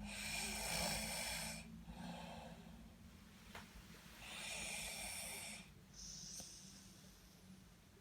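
A sleeping person snoring: two long snores about four seconds apart, each followed by a shorter one.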